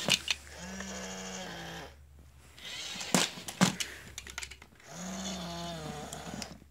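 Tekno robotic Dalmatian toy's motors whirring as it moves, in two spells of about a second each, with sharp plastic clicks in between.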